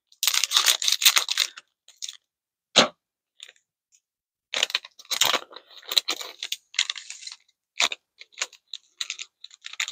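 Snack packaging for chocolate-cream wafer sticks crinkling as it is handled and opened. It comes in bursts with a few sharp clicks: a long burst at the start, a lone click about three seconds in, then a run of crinkles through the second half.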